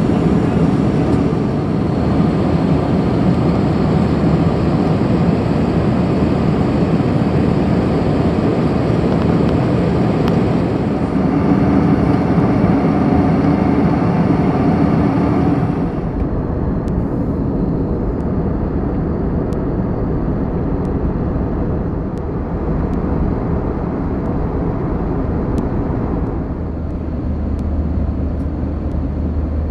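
Steady cabin roar of an Airbus A321 airliner at altitude: jet engine and airflow noise heard from a window seat. The character of the roar shifts abruptly about halfway through, losing its hiss, and again near the end, where a deeper hum comes up.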